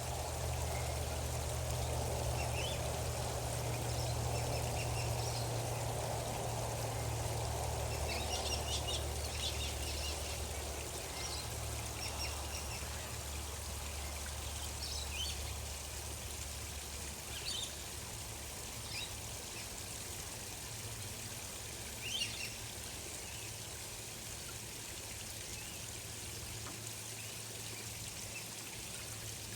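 Gentle running water, a steady trickling flow over a low rumble, with scattered short, high chirps from small birds throughout.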